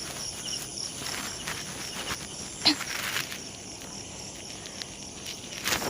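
Crickets chirping steadily in a fast, even pulse, with a few faint clicks and rustles scattered through and a louder rustle near the end.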